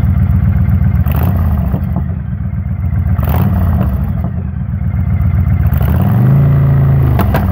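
Honda VTX V-twin cruiser engine idling with a deep steady rumble, with a few short sharp cracks and one throttle blip about six seconds in that briefly raises the pitch.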